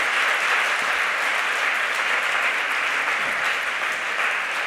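Audience applauding: steady, dense clapping from a hall full of people.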